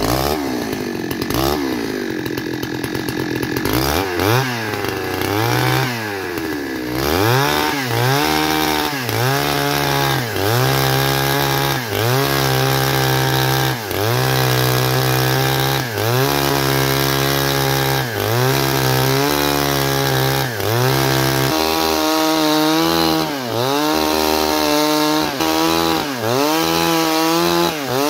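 Two-stroke gasoline chainsaw ripping lengthwise through a log. The engine runs loud at high revs, its pitch dipping and recovering every second or two as the chain bogs under load and picks back up.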